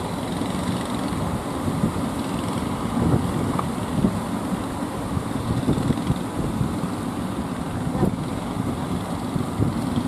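Wind buffeting the microphone over the rush of breaking surf, an uneven rumbling noise with small gusts throughout.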